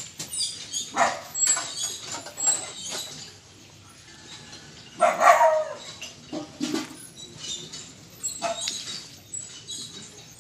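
A dog barking several times in short, separate barks, the loudest about five seconds in.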